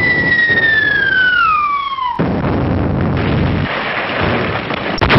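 A whistle falling steadily in pitch, cut off about two seconds in by a long, loud explosion rumble.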